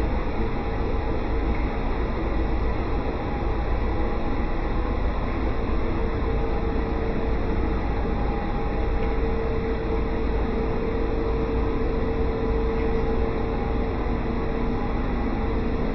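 Swimming-pool plant-room pump machinery running steadily: a continuous low rumble with a steady hum.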